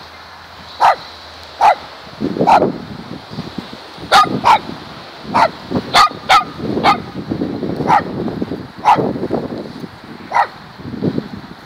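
Small dog barking repeatedly, about a dozen short, sharp, high-pitched barks at irregular intervals of roughly a second.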